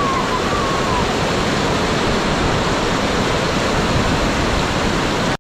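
Floodwater rushing in a loud, steady torrent. A short pitched call rises and then falls in the first second.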